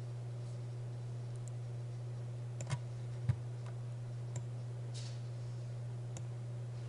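A handful of sharp, isolated computer-mouse clicks, the loudest about three seconds in, over a steady low hum.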